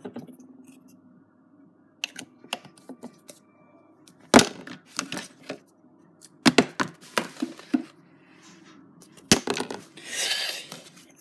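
A small plastic bottle being flipped and landing on a wooden shelf: separate sharp knocks and clatters, the loudest about four seconds in, others about six and a half and nine and a half seconds in. A brief rustle follows near the end.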